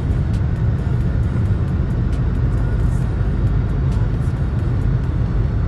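Steady road and engine rumble inside a car's cabin at highway speed, with background music and its ticking beat.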